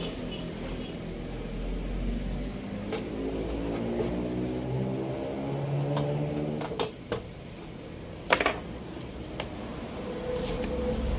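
Scattered sharp clicks and light knocks of hand work on the opened TV's backlight strips, over a steady low drone whose pitch drifts slowly.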